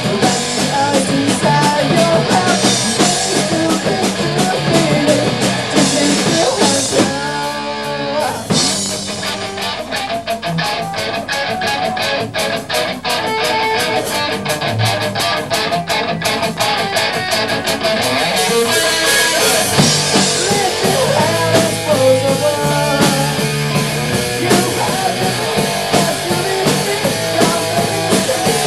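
Live punk rock band playing: distorted electric guitars, bass and a drum kit at full volume. About seven seconds in, the band drops to a single held chord for a second or so, then comes back in with fast, driving drums.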